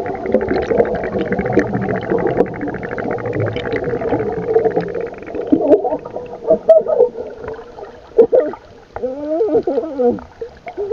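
Underwater recording of divers' exhaled air bubbles gurgling and crackling densely for the first half. Then come broken gurgles and, about nine seconds in, a few muffled wavering tones.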